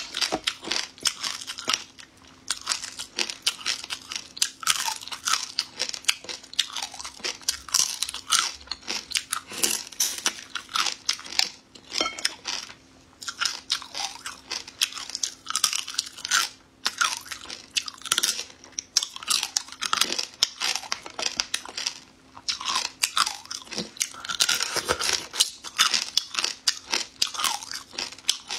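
Close-miked eating of shrimp: continuous crunching and chewing as the shells and meat are bitten, a dense run of quick crackles with only brief pauses. A faint steady hum runs underneath.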